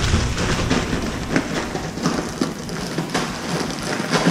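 Plastic packaging crinkling and rustling as new faucet parts are unwrapped by hand, a dense run of small crackles.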